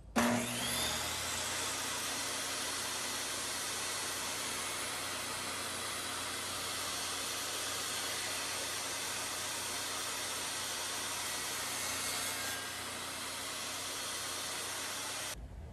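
Table saw starting up, its motor whine rising to speed over the first second, then running steadily while a scrap piece of wood is pushed along the fence through the blade to cut a groove. The sound cuts off suddenly near the end.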